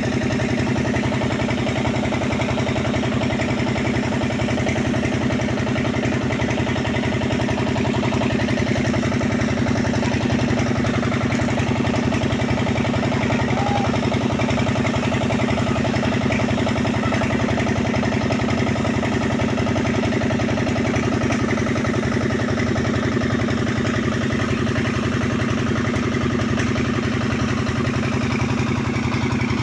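Engine of road construction machinery running steadily at a constant speed, with no change in pitch or load.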